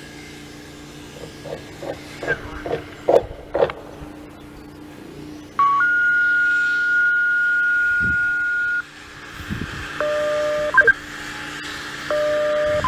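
Two-tone sequential paging tone over a scanner radio: a short lower tone, then a long steady higher tone of about three seconds, about halfway through. It is the tone-out that alerts responders to a dispatch. Two short bursts of beeps follow near the end, over a steady low hum, with a few short knocks in the first few seconds.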